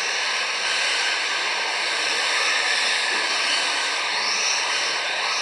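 Several electric 1:10 RC touring cars racing, a steady high whine of motors and drivetrains over the hiss of tyres on carpet. The pitch rises and falls briefly as cars pass, about four seconds in.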